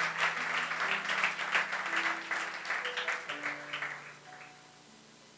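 A congregation applauding, dying away about four seconds in, over soft held keyboard chords that shift every second or so.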